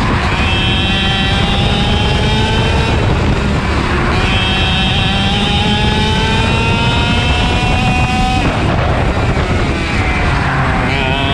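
Racing kart engine heard from on board at race speed, its revs climbing along the straights. The note dips about three seconds in, climbs again, then drops away sharply about eight seconds in as the throttle is lifted for a corner, and picks up again near the end.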